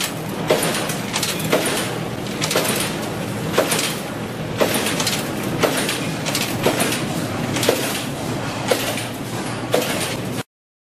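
Wire straightening and cutting machine running with a steady mechanical noise, a sharp metallic clank about once a second as each length of steel wire is cut. The sound stops abruptly near the end.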